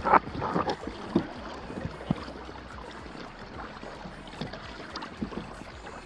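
Water lapping and splashing against the hull of a Hobie sail kayak under way in a breeze: a few sharper slaps in the first second, then a steady wash of water along the hull.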